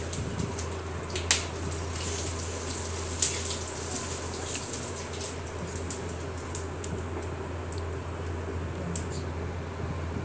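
Whole spices (cumin, dried red chillies, bay leaf, cardamom, cloves, cinnamon) sizzling in hot oil in a kadhai for a tadka, with scattered sharp pops and crackles over a low steady hum.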